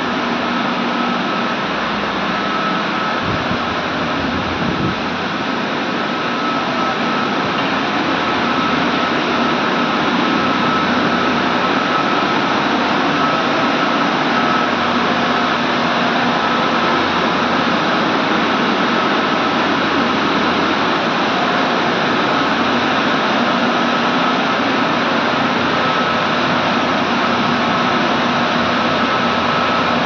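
Steady roar of a steam boiler's forced-draught burner running, a Weishaupt Monarch, with a high whine and a lower hum held over the rush. It grows a little louder over the first several seconds, with a few low bumps about three to five seconds in.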